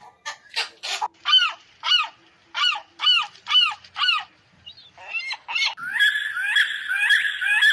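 Birds calling: a few rough, noisy calls, then a string of clear, arching calls about every half second, changing near the end to a denser, continuous calling with repeated hooked notes.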